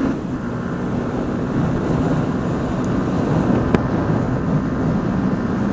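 Wind noise on the helmet microphone over the steady drone of a Yamaha MT-125's single-cylinder 125 cc engine at a cruise, with one brief click about three and a half seconds in.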